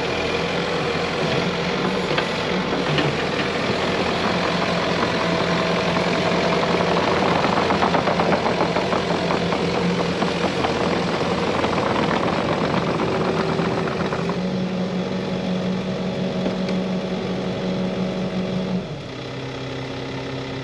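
Caterpillar 308E mini excavator's diesel engine running steadily at working revs, its note shifting a few times as it works. About nineteen seconds in, it drops to a quieter, lower-revving note.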